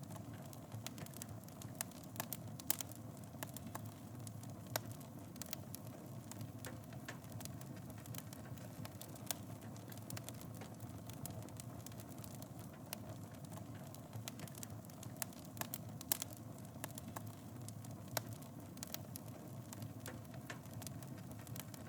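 Fire burning in a fireplace: a steady low rush with irregular sharp crackles and pops, a couple of them louder than the rest.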